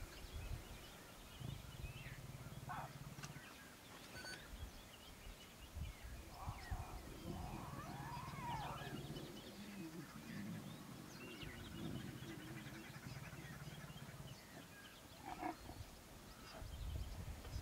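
Lion cubs growling low as they jostle one another to suckle, the rumbles running for several seconds with short breaks, with a few higher cub calls in between. About fifteen seconds in, a short snarl as the lioness warns a cub. Faint bird chirps can be heard in the background.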